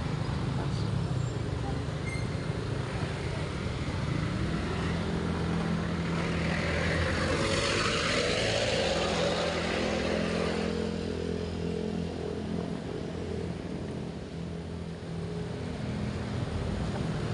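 Street traffic with engines running steadily, and a jeepney passing close about eight seconds in, its engine and tyre noise swelling and then fading.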